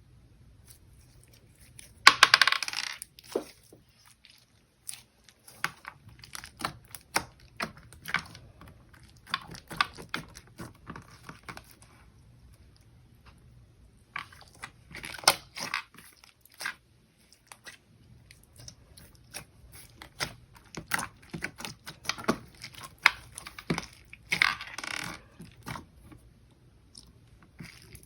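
Hands squishing, poking and stretching a beaded slime: irregular sticky clicks and pops, with louder crackling squelches about two seconds in, around the middle and near the end.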